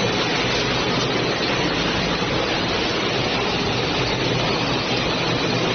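Automatic wall-plastering machine running: a steady mechanical rushing noise with a low motor hum underneath.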